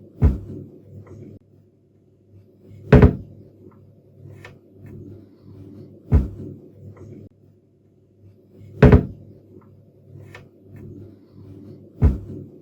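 A cabinet door shut five times, about every three seconds, each close a sharp knock with a brief tail. Faint small clicks fall between the closes, over a low background hum.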